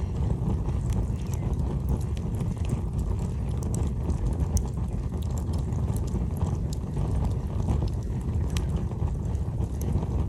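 Birch-wood campfire crackling: scattered sharp pops and snaps over a steady low rumble.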